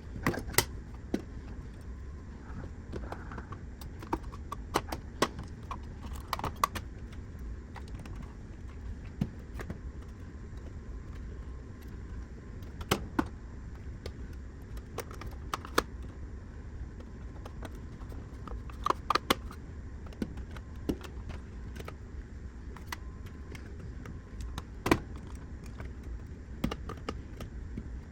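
Scattered light clicks and clatter of small parts and tools being handled while a console is cleaned up and reassembled, at irregular intervals and sometimes in quick clusters, over a steady low hum.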